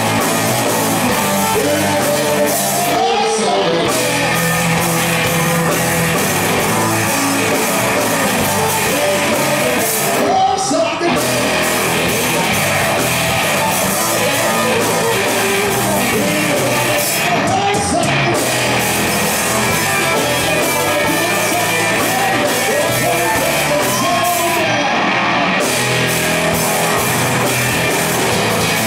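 Live rock band playing: electric and acoustic guitars over a drum kit, loud and without a break.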